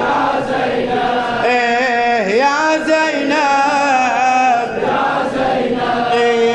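Men chanting a Shia latmiyya, a mourning elegy for Husayn: a reciter's sung line with a crowd of male voices chanting along, unaccompanied and continuous.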